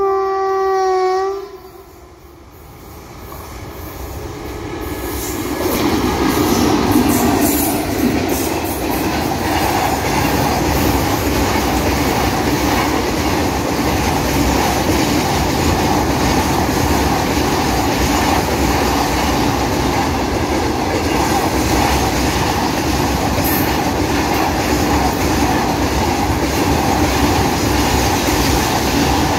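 A WAG-5 electric freight locomotive's horn sounds one held note for about a second and a half as the train approaches. The train noise then builds over the next few seconds into a steady loud rumble of BTPN petrol tank wagons running past at speed.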